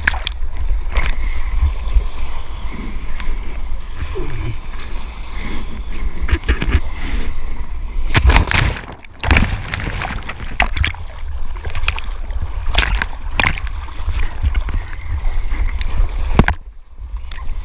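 Seawater splashing and sloshing over a surfboard and the board-mounted GoPro's waterproof housing as the surfer paddles and rides a small wave, with a steady low rumble and frequent sharp splashes.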